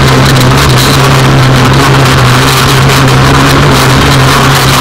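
Racing buggy engine running at steady high revs, held at one pitch while driving flat out on a dirt track, recorded loud from an onboard camera.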